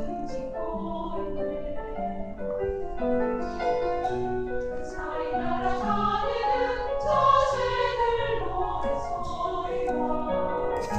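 Women's choir singing in parts, with sustained chords that swell to their loudest a little past the middle.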